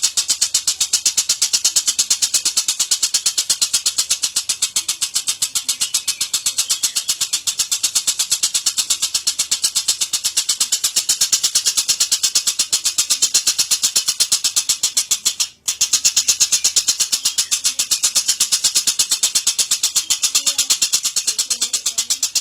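Lovebird's long, rapid high-pitched chattering trill ('ngekek'), a fast, even run of sharp notes that carries on with one brief break partway through.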